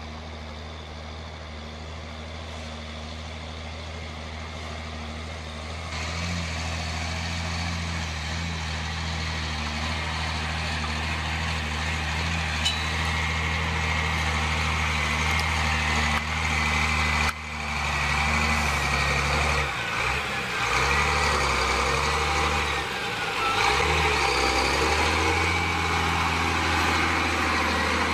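Diesel engine of a loaded Peterbilt log truck running as the truck drives up and past, growing louder. The engine note dips and rises about two-thirds of the way through, with a thin high whine over it in the second half.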